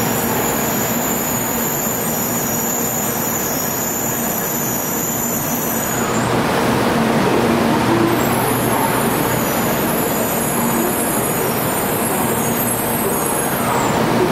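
Tokaido Shinkansen Series 700 bullet train rolling slowly along the platform and coming to a stop, a steady loud rumble and hiss of the train.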